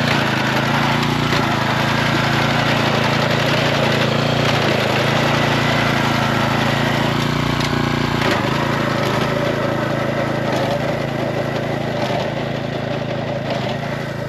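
Small engine of a rice harvesting machine running steadily at an even speed, easing off slightly near the end.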